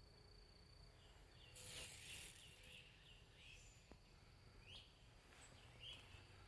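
Near silence: faint outdoor ambience with a few soft bird chirps scattered through it, and a brief rustle about two seconds in.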